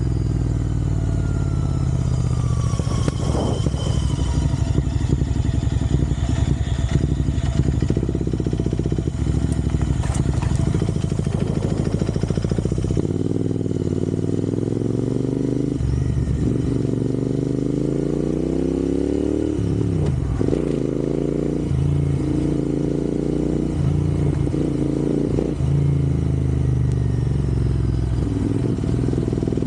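Royal Enfield Interceptor 650's parallel-twin engine running while the bike is ridden. From about halfway the engine pitch rises again and again as it accelerates.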